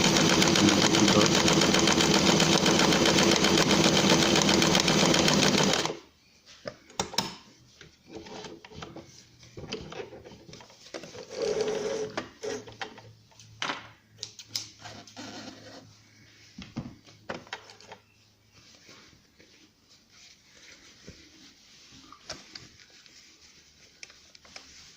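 Electric sewing machine stitching steadily at speed with an overlock presser foot, sewing an overlock edge. It stops abruptly about six seconds in, followed by quieter clicks and rustling of fabric being handled.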